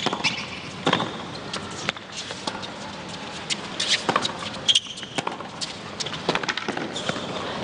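Tennis rally on a hard court: sharp pops of racket strings striking the ball and the ball bouncing on the court, coming roughly a second apart.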